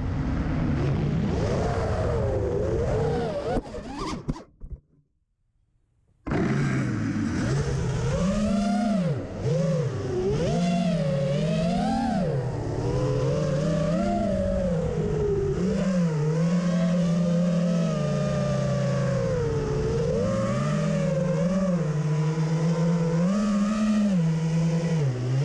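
A 5-inch FPV racing quadcopter's four brushless motors (Diatone 2205 2480KV) whining through their propellers, the pitch swinging up and down constantly with throttle. The sound drops out almost completely for about two seconds, around five seconds in.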